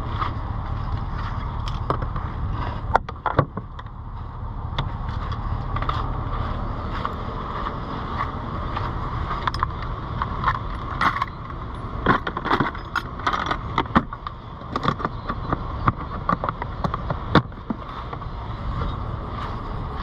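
Steady wind rumble on the microphone, with scattered sharp clicks and metal clinks of hand tools being handled in a plastic toolbox.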